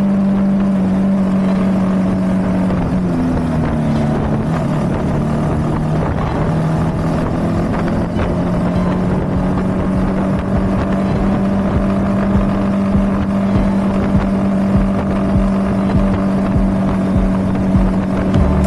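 Honda CB190R's single-cylinder engine running at a steady cruise. Its note drops in pitch about three seconds in as the rider eases off, then climbs back and holds steady.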